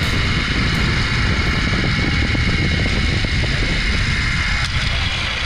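Zipline trolley running along the steel cable with a steady high whir, under loud wind rush on the microphone from the face-first ride. The whir eases off slightly near the end.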